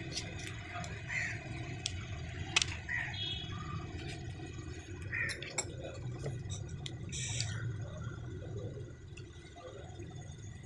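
Scattered light clicks and taps from hands handling the timing chain and engine parts, over a steady low background hum.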